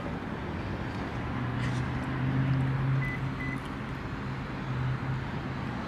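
Electric motors of a Wagoneer's power-folding rear seats humming steadily for about four seconds as the seats move, with a brief break near the end. Two short high beeps sound about three seconds in.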